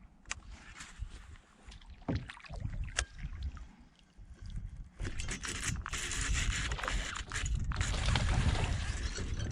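Water noise and knocks around a fishing kayak: scattered clicks and knocks at first, then a louder, denser rush of water and hull noise from about five seconds in.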